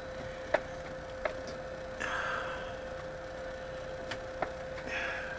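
Quiet workshop room tone with a steady hum, broken by four sharp, isolated clicks (the first, about half a second in, is the loudest) and two soft breaths, about two and five seconds in.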